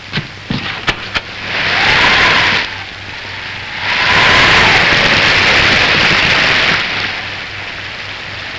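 Storm sound effect on an early sound-film track: wind and rain swelling up in two long gusts, the first about two seconds in and the second at about four seconds and lasting nearly three seconds, with a faint whistle in the wind. A few sharp clicks come near the start.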